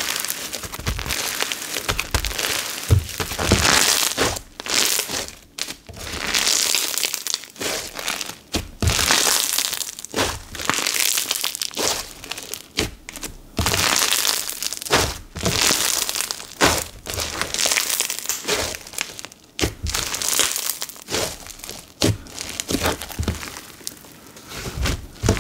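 Bingsu slime packed with small beads and glitter being stretched, folded and poked by hand, giving a crispy crackling in repeated bursts about a second long with short gaps between them.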